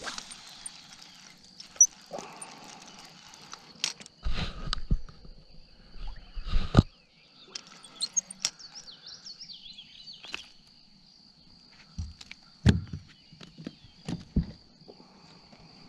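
Scattered knocks, clicks and a few heavy thumps from moving about on a bass boat's deck and handling a fishing rod and reel, over a faint steady high-pitched tone.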